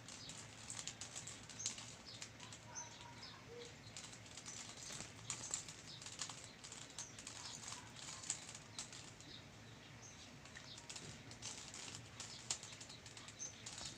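A 3x3 Rubik's Cube being turned by hand: a light, irregular run of plastic clicks and clacks as its layers are twisted.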